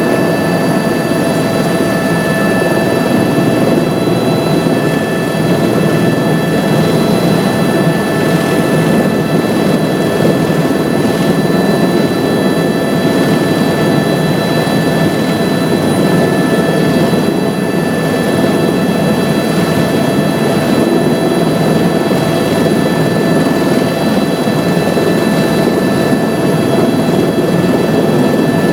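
Helicopter in flight: a loud, steady drone of engine and rotor noise with several constant high whining tones over it.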